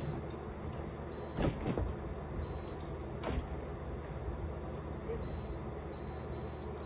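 Steady low hum of a running solar mini-split air conditioner, with a faint high tone that comes and goes and a few brief knocks about one and a half and three seconds in.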